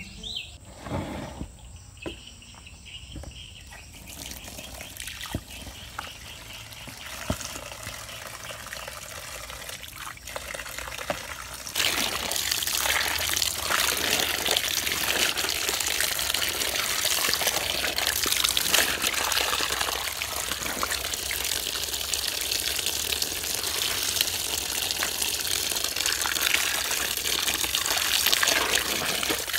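Stream of water pouring into a plastic basin full of clothes being hand-washed, a loud steady rush that starts abruptly about twelve seconds in. Before that there is only a quieter outdoor background with a few faint clicks.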